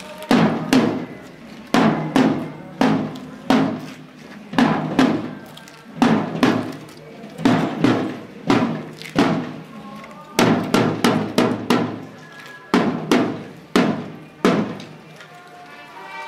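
Marching drum beaten with wooden sticks in a steady processional cadence, the strokes coming about twice a second, often in pairs. The beating stops about a second and a half before the end.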